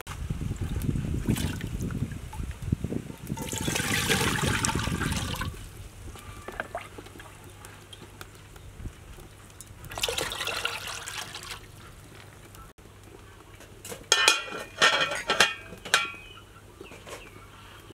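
Water poured into an aluminium cooking pot, in two pours, followed by several sharp clanks of the metal lid being set on the pot.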